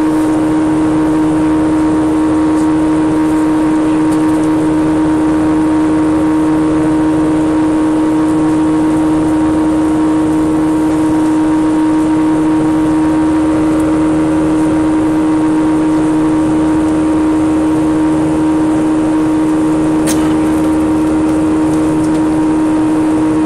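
Jet airliner engine noise heard inside the cabin: the steady drone of a Southwest Boeing 737's turbofans, with a strong constant hum and a faint click about 20 seconds in.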